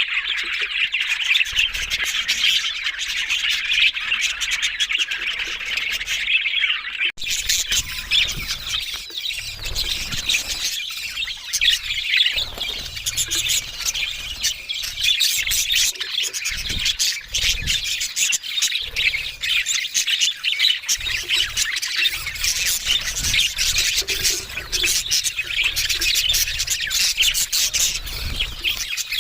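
Budgerigars chattering and warbling without a break, with squawks mixed in. About seven seconds in the chatter breaks off for a moment and comes back brighter and scratchier.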